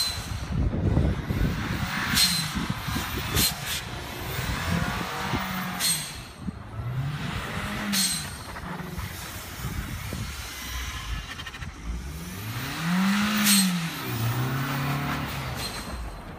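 Audi quattro sedan's engine revving up and down over and over as the car spins donuts in snow, the highest rev about thirteen seconds in. Several short sharp noises break in between the revs.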